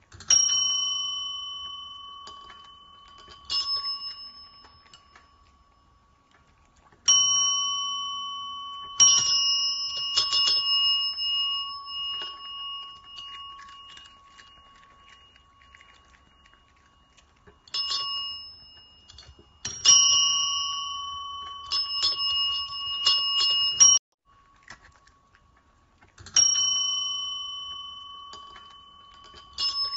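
Chrome tabletop service bell struck again and again: single dings and quick runs of several strikes, each ring fading slowly over a few seconds.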